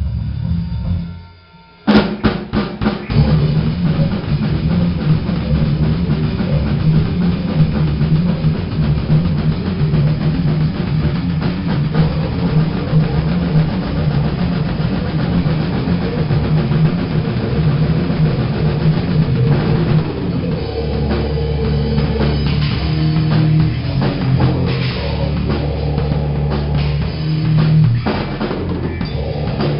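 Grindcore song by a metal band, led by dense drum kit playing with bass drum and snare. It starts abruptly with a hit about two seconds in, after the preceding sound drops out.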